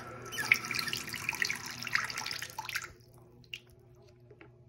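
Water being dumped out of a small plastic dish, splashing and trickling for about three seconds and then stopping, followed by a few faint clicks.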